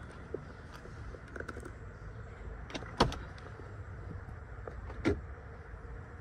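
Low steady rumble with two sharp knocks about two seconds apart, as the BMW i3's doors are handled and its rear-hinged back door opened.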